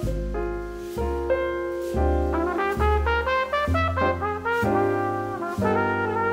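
Background music: brass instruments playing a melody over a low bass line that moves about once a second.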